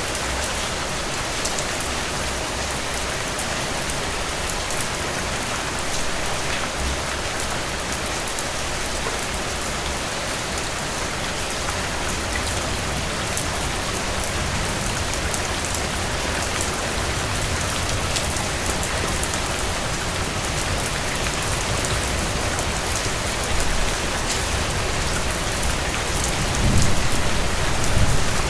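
Steady rain falling on surfaces: an even hiss with fine scattered drop ticks. A low rumble swells near the end.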